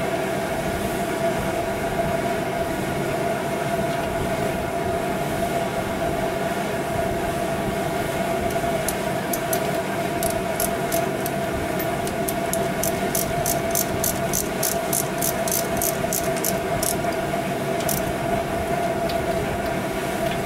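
Ratchet wrench clicking about three times a second for several seconds, starting about nine seconds in, as the connecting-rod bolts of a small-block Chevy 350 are run down. Under it runs a steady machine hum with a constant tone.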